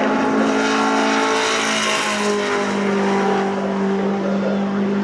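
Racing pickup trucks' engines running at high revs. Several steady engine notes overlap, and one shifts lower about two seconds in as a truck passes.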